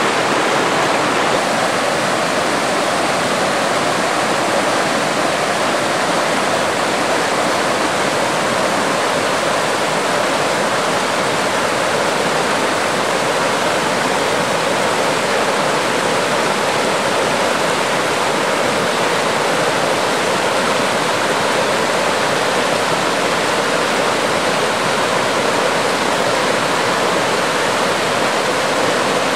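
Rushing stream: a steady, even rush of running water.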